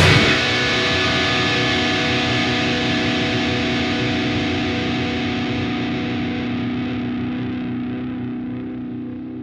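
Distorted electric guitar left ringing on a held chord after the full metal band cuts off just after the start, slowly fading out as the song ends.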